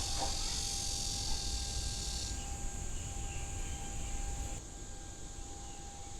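Outdoor nature ambience: insects chirring in a dense high hiss over a low rumble, with a faint steady tone. The insect hiss cuts off suddenly about two seconds in, and the sound changes sharply again near the end.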